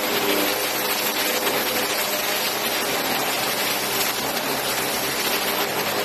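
Pneumatic planishing hammer running continuously, its air-driven die hammering rapidly on a sheet-metal car body panel to smooth out dents; a dense, steady mechanical rattle.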